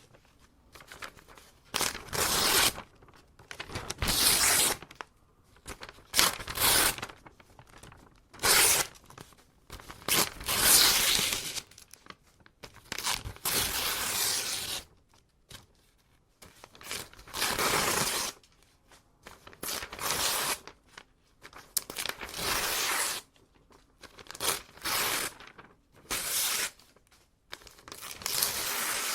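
Paper being ripped by hand in a series of separate tears, each lasting about a second, with short pauses between them.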